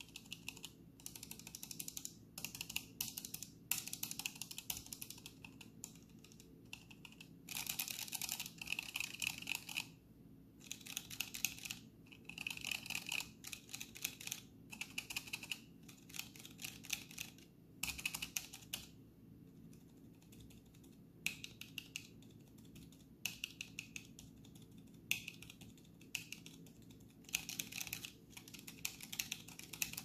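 Low-profile Kailh Choc V1 switches typed in quick runs of keystrokes, each run a second or two long with short pauses between. The switches are a mix of unmodded ones and ones tape-modded, lubed and O-ringed to quiet them.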